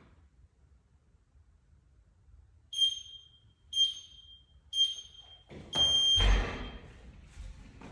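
Gym interval timer counting down to the start: three short high beeps about a second apart, then one longer beep. A loud thud follows as someone jumps up and grabs the pull-up bar.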